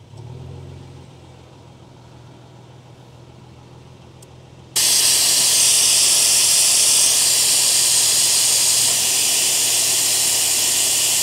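Air hissing out of a truck tyre through an ARB E-Z Deflator with the valve core unscrewed and withdrawn: a loud, steady hiss that starts suddenly about five seconds in as the tyre deflates rapidly.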